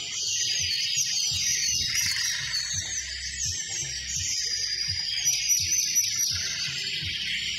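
Background music with a low pulsing beat and dense high twittering chirps over it.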